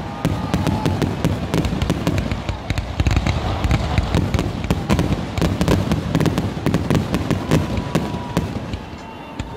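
Aerial firework shells launching and bursting in rapid succession: a dense barrage of booms and crackles that eases off near the end.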